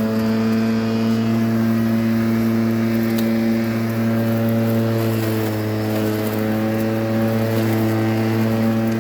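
Corded electric lawn mower motor running with a steady hum, its pitch dipping slightly about five seconds in.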